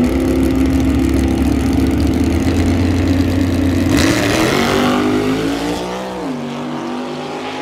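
Two drag-race cars' engines held at steady high revs on the start line, then launching about four seconds in with a sudden burst of noise. The engine notes climb as the cars pull away down the strip, dip once around six seconds in, and grow a little quieter.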